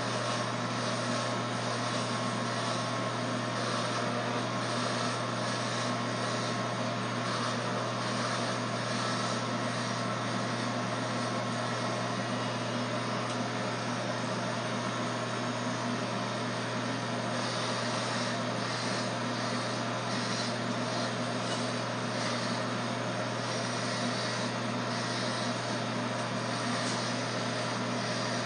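Corded electric hair clippers running with a low, steady buzz as they shave hair close to the scalp.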